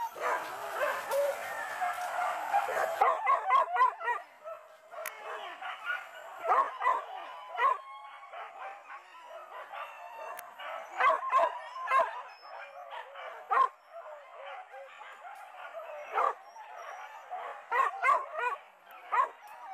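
Several hunting dogs barking and yelping, with a dense overlapping burst of calls in the first few seconds followed by repeated short, sharp yelps.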